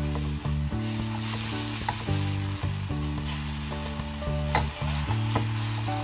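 Background music of held low notes that change pitch every second or so, over a steady crackling hiss.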